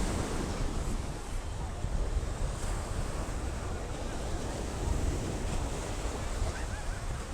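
Ocean surf washing steadily, with wind buffeting the microphone as a low rumble.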